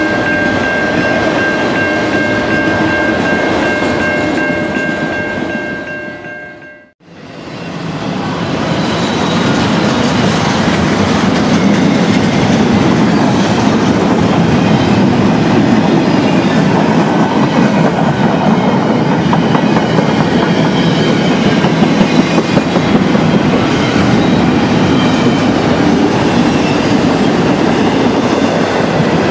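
Freight train cars rolling past at speed, a steady rumble and clatter of steel wheels on the rails. At first, autorack cars pass with several steady high tones over the wheel noise. About seven seconds in, the sound fades out and comes back as a CN double-stack container train passing close by, louder and fuller.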